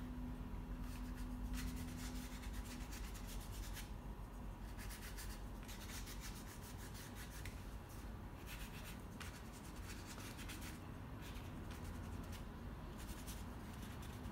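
Paintbrush bristles brushing across canvas paper in many short strokes, some in quick runs, a soft rubbing hiss.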